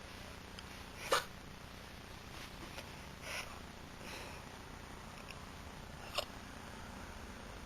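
A young woman hiccuping: two sharp hiccups, one about a second in and a thinner one about six seconds in, with a softer breath in between.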